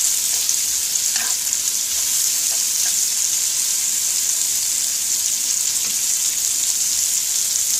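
Bitter melon slices and SPAM cubes sizzling steadily as they stir-fry in a hot pan, with chopsticks stirring through them now and then.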